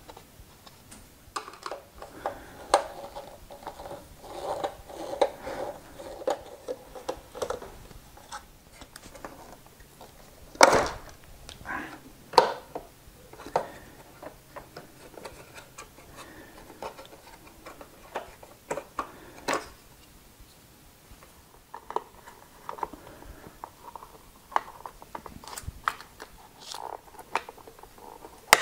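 Hands working on a disassembled electric unicycle: irregular clicks, taps and rubbing as plastic shell parts, wiring and the control board are handled, with one louder knock about a third of the way through.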